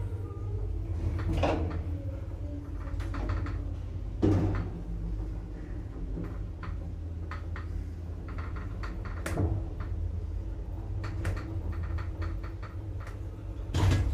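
ZREMB passenger lift car travelling up the shaft: a steady low drive hum, broken by sharp mechanical clunks and clicks every few seconds. The loudest clunk comes near the end as the car arrives at the landing.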